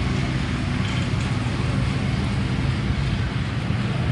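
An engine running steadily with a low rumble, holding an even speed throughout.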